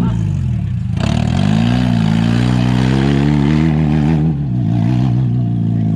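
Car engine revving, its pitch falling off about a second in, then climbing for a couple of seconds before easing to a steady lower note near the end.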